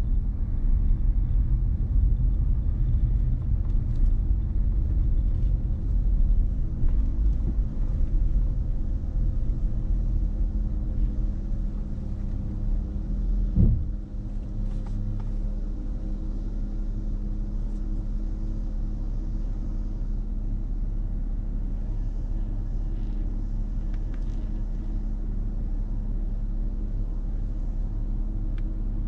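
Car driving, with road and engine rumble under a steady hum. About halfway through there is a short knock, and the rumble drops to a quieter, steady low hum.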